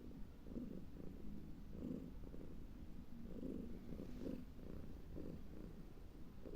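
A domestic cat's low rumbling breath, swelling and fading about once a second with each breath in and out.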